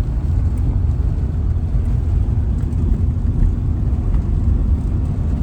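Steady low rumble of road and engine noise inside the cab of a moving camper van.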